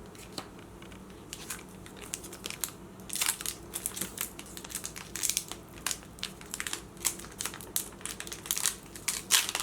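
Plastic and foil packaging from a Pokémon card box crinkling as it is handled, a few faint crackles at first, then denser, louder crackling from about three seconds in.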